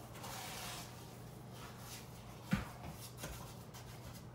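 A spoon stirring and scraping wet sugar paste in a container: soft gritty rubbing, with one sharp knock about two and a half seconds in.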